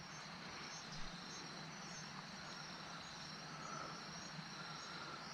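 Faint, steady insect chirping, high and pulsing at a regular rate, with one soft knock about a second in.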